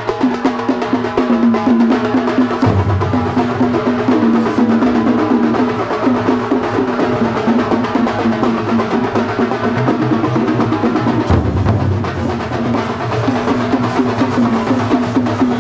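Loud, fast massed drumming by a tambolam troupe beating large frame drums with sticks, with a sustained low tone running beneath the strokes.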